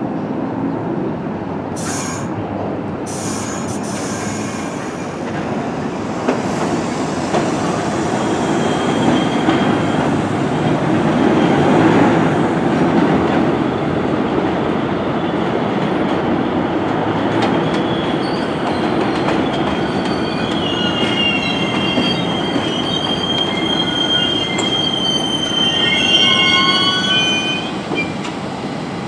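New York City Subway 1 trains of R62/R62A cars running on steel rails with a steady rumble. Through the second half the wheels squeal in high, drawn-out tones that stop shortly before the end.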